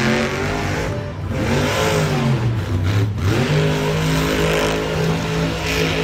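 Monster truck engine revving hard. Its note dips and climbs again about three seconds in, then holds steady.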